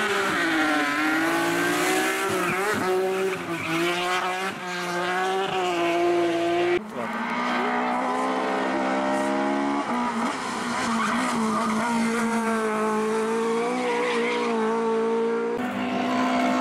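Rally cars at full throttle one after another, each engine revving high and dropping with gear changes. First comes a BMW 1 Series. About seven seconds in, the sound changes abruptly to another car's engine, held high and wavering. Near the end it cuts to a third car.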